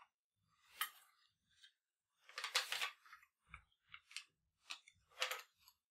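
A TOZ double-barrelled hammer shotgun being lifted off its rest and handled in gloved hands: a series of soft knocks, clicks and rustles of wood and metal, the loudest about two and a half and five seconds in.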